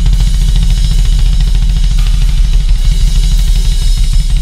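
Acoustic drum kit played loud and fast: a rapid, unbroken run of bass-drum strokes under a steady wash of Paiste cymbals.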